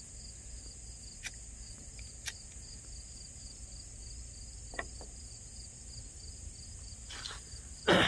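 Insects chirring in a steady high drone with a faint pulsing beneath it. A few soft clicks are heard along the way.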